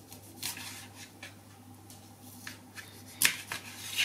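Kitchen knife slicing a tomato on a plastic cutting board: several short cutting strokes, the loudest about three seconds in.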